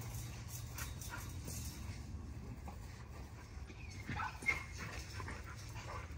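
A dog giving a few short high-pitched yelps and whines, a couple about a second in and a cluster around four seconds in, the sharpest a little past four and a half seconds.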